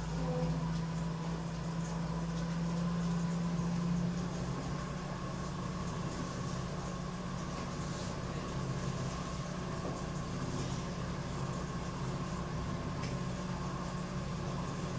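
Underwater treadmill for dog hydrotherapy running with a steady mechanical hum: a low drone with a fainter, higher whine above it. The low tone is stronger for the first few seconds, then settles a little quieter.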